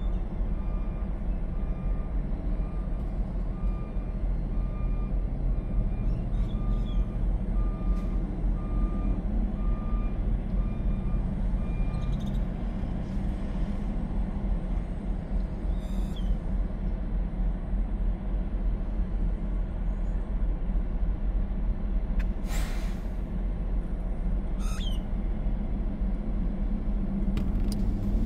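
Steady low rumble of idling diesel trucks, with a truck's reversing alarm beeping about once a second for the first twelve seconds. About two-thirds of the way through, a short hiss of air brakes being released.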